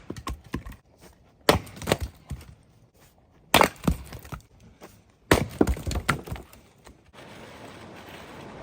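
Firewood being split: three sharp strikes about two seconds apart, each followed by pieces of wood knocking and clattering.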